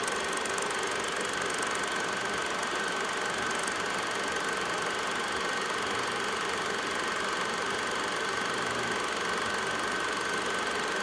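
A small motor running steadily, with a constant high whine over an even whirring noise.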